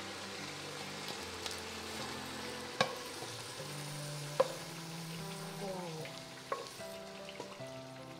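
Vegetables sizzling in a hot pan as they are stir-fried, with the spatula clanking sharply against the pan twice near the middle. Soft background music underneath.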